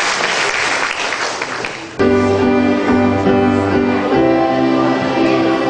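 Audience applauding. About two seconds in the clapping cuts off abruptly into slow instrumental music of held chords over a bass line.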